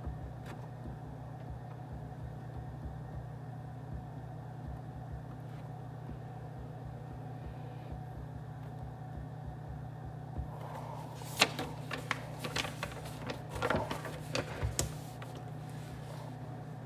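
Steady low hum of office ambience. About ten seconds in comes a few seconds of sharp clicks and clatter, like objects being handled and set down.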